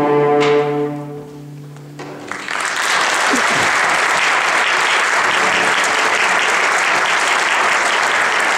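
A large ensemble of cellos ends a gavotte on a held final chord that fades out over the first two seconds, a low note lingering longest. A little after two seconds in, the audience starts applauding, steady and loud.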